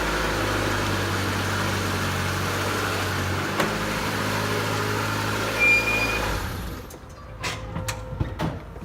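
A car engine idling steadily. It fades out about six and a half seconds in, and a few sharp knocks or clicks follow.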